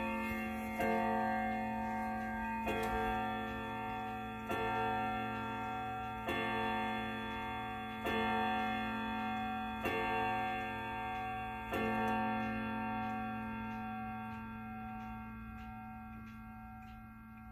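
A pendulum wall clock striking noon: slow, evenly spaced ringing strikes about 1.8 s apart, seven of them here, the last about twelve seconds in. That last strike rings down while the pendulum's steady ticking comes through.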